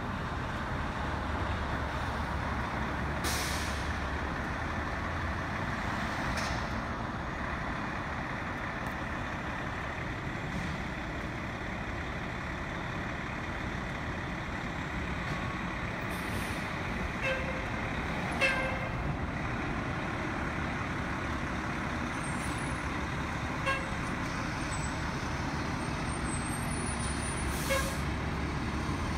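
Fire engine's diesel engine running as the rig pulls out of the station, a steady rumble under traffic noise, with a few short hissing bursts and brief sharp sounds along the way.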